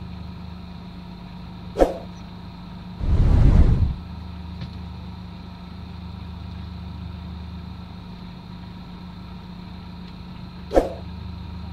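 Diesel engine of an intercity coach idling steadily. Twice, about nine seconds apart, a sharp click is followed about a second later by a loud rush of noise lasting under a second.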